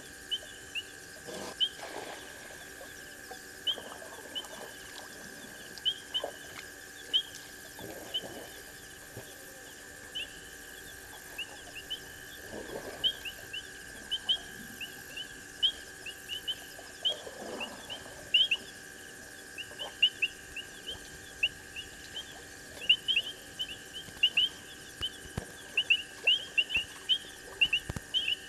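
Night ambience at a bush waterhole: many short, high chirps from small animals, repeating irregularly and coming faster in the second half, over a steady high drone, with a few faint low swishes.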